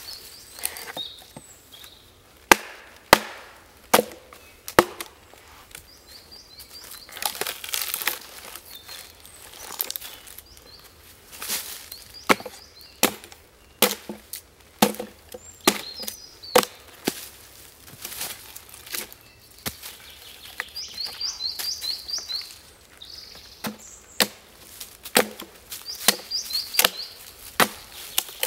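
Axe blade chopping into a split log, hewing off notches and slabs of fresh wood: sharp, irregular blows, at times about one a second.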